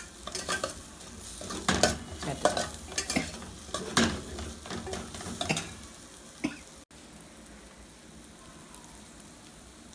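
A metal spoon stirring a frying mixture of onion, tomato and ground Maldive fish in a stainless steel pot, scraping and clinking against the pot in quick irregular strokes over a steady sizzle. About seven seconds in the stirring stops abruptly and only a faint sizzle is left.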